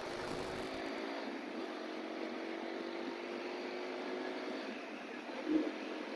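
Traffic waiting at a signal: steady noise from idling vehicle engines, with a faint engine hum holding through most of it. There is one brief louder sound about five and a half seconds in.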